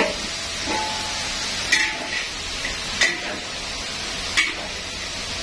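A metal spatula stirring in a large aluminium wok, knocking against the pan four times at roughly even intervals, over a steady sizzle of shallots and garlic frying in oil.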